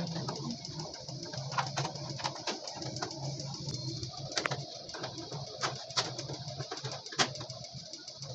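Low, repeated cooing like pigeons', with scattered sharp clicks and knocks over a steady high hiss.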